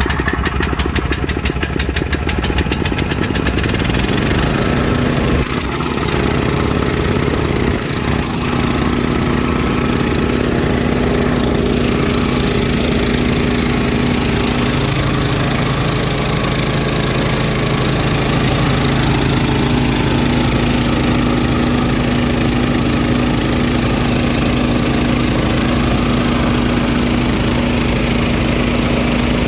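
Small gasoline engine of an engine-driven air compressor running just after a choked start: a fast, even rhythm for the first few seconds, then it settles into a steady run.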